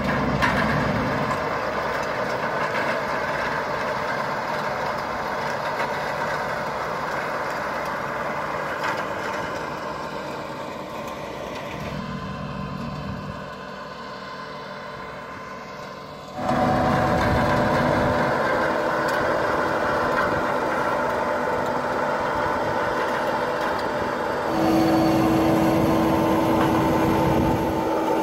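Fendt tractor running steadily while it pulls a PTO-driven Rotadairon RX 300 NIV soil preparer/stone burier working the soil. The sound shifts abruptly in level and character a few times. A steady whine stands out over it in the last few seconds.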